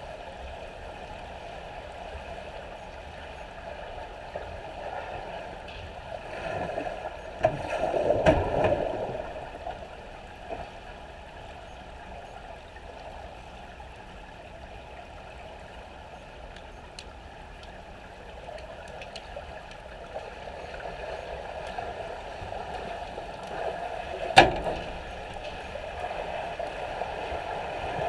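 Pool water heard from underwater, muffled by the camera's waterproof housing: a steady churning hiss of swimmers' strokes and kicks. It swells about seven to nine seconds in and again near the end as swimmers pass overhead, with one sharp knock a little after twenty-four seconds.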